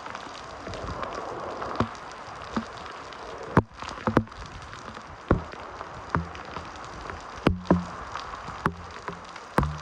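Heavy typhoon rain falling steadily, with large drops or drips striking a surface close by in sharp, irregular taps.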